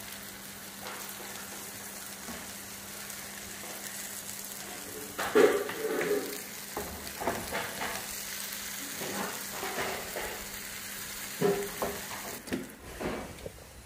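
Egg omelette with onion and tomato sizzling in oil in a non-stick frying pan. From about five seconds in, a spatula knocks and scrapes against the pan several times.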